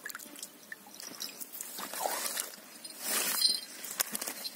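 Water sloshing and streaming off a mesh keep net full of fish as it is hauled out of the water, with irregular splashes and drips, loudest about two and three seconds in.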